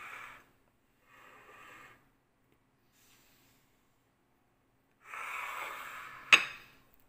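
A person breathing out in short hissy puffs close to a phone's microphone, three times, the last one longer, followed by one sharp click near the end.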